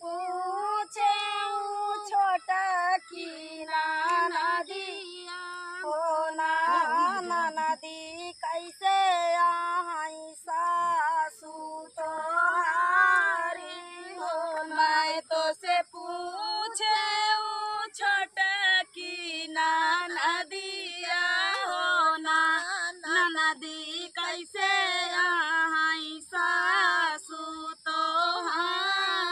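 A woman's voice singing a dhaan ropai kajari, a folk song sung while transplanting paddy, in long gliding phrases with short breaks for breath and no instruments.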